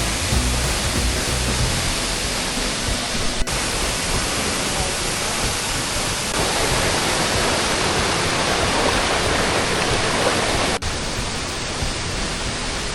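A 25-metre waterfall pouring into its pool, a steady, loud rush of falling water. The rush is broken by two abrupt cuts, about three and a half and eleven seconds in.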